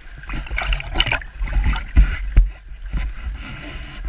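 Water splashing and sloshing in a landing net holding a rainbow trout as hands work at it in the river, over the steady rush of the stream, with low bumps on the microphone.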